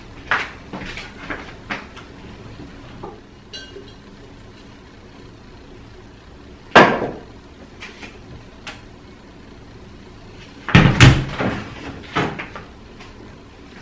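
Knocks and clunks of an Electrolux front-loading washing machine being handled for a wash: a few light clicks, one sharp bang about seven seconds in, then a cluster of clatters near the end as the detergent drawer is pulled out.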